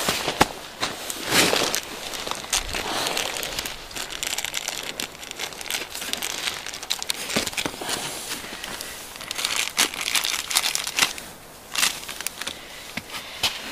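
Plastic wrapping crinkling and rustling as it is handled in the hands, in uneven spells with small clicks, along with the rustle of gear being moved about in a pack.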